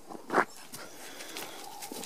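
Black puppies at play: one gives a short yelp about a third of a second in, then their paws scuffle and rustle through dry leaf litter.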